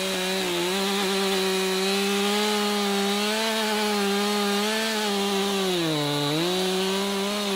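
Professional-size two-stroke chainsaw running at high revs while cutting into a wooden log. The engine pitch holds steady, dips briefly about six seconds in, then comes back up.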